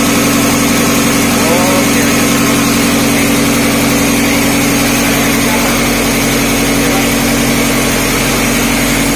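Marine diesel engines running in a tugboat's enclosed engine room: a loud, constant drone that does not change.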